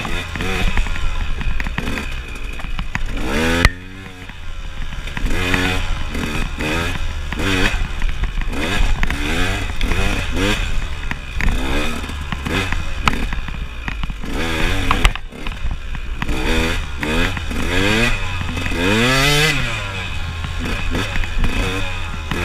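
KTM enduro motorcycle engine revving up and down over and over as the bike is ridden hard along a rough trail. A steady low wind rumble sits on the onboard microphone, and a few sharp knocks come from the bike hitting rough ground.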